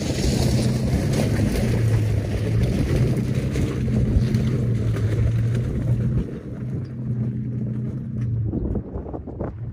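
A Toyota Tacoma pickup's engine runs steadily under load as the truck crawls up a loose gravel berm, with wind on the microphone. The engine falls off about six seconds in and fades out near the end as the truck moves away over the crest.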